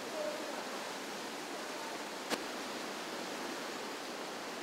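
Steady rushing of whitewater rapids on a river, with a single short click about halfway through.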